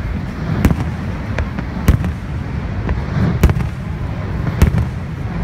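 Aerial fireworks shells bursting: four loud, sharp bangs roughly a second apart, with fainter pops between them, over a steady low rumble.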